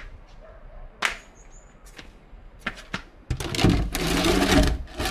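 Hand tools being handled: a few sharp clicks and knocks, then a loud scraping, rustling noise lasting about a second and a half near the end.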